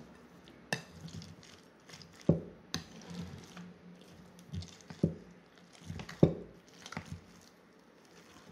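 Metal spoon stirring a wet mixture of ground liver, ground almonds, eggs and parsley in a glass bowl: irregular squelches and clinks of the spoon against the glass, the loudest about two, five and six seconds in. It is the stuffing being mixed until it comes together.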